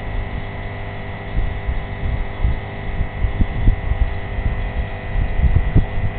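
A steady hum made of several held tones, with irregular low rumbling and short low knocks over it.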